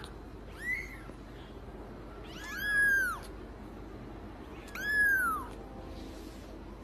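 A cat meowing three times: a short meow just under a second in, then two longer meows around three and five seconds in, each rising and then falling in pitch.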